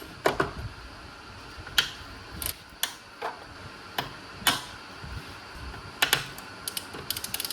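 Irregular sharp clicks and taps of hand tools and plastic fittings on a car door while its interior trim and screws are taken off, with a quick run of small ticks near the end.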